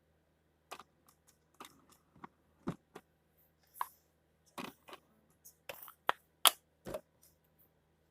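Toy pots and small items knocked and set down while being put away in a toy fridge: a series of irregular clicks and knocks, the loudest about six and a half seconds in.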